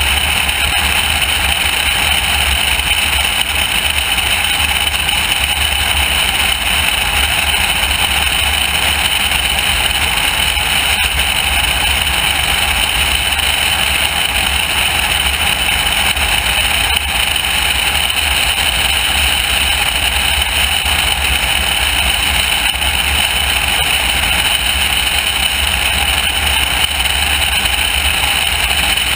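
Loud, steady wind rushing over an externally mounted camera on a small high-wing airplane in level flight, with the plane's engine droning underneath.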